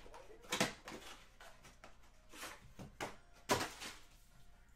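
Cardboard trading-card boxes and their wrapping being handled and set down on a table: a few short knocks and rustles, the loudest about three and a half seconds in.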